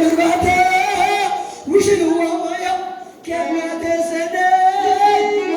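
Singing with musical accompaniment: long held notes with a slight waver, in phrases broken by short gaps about a second and a half in and again near three seconds.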